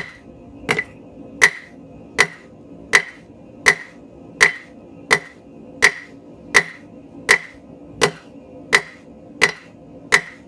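Blacksmith's hammer striking hot steel on the anvil in a steady rhythm, about four blows every three seconds, each with a short metallic ring, drawing out a taper on the bar.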